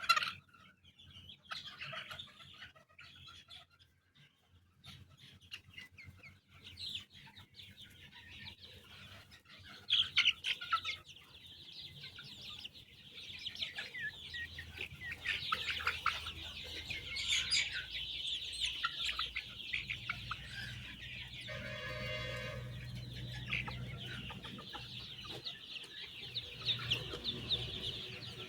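A large flock of young chicks peeping: a dense chorus of short, high cheeps that is sparse and faint at first and fills in from about ten seconds in. About three-quarters of the way through, a brief steady-pitched call sounds over the chorus.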